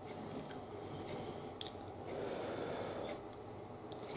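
Quiet room with faint handling sounds and a couple of small clicks, the last as a metal fork carrying a mouthful of nut roast goes into the mouth near the end.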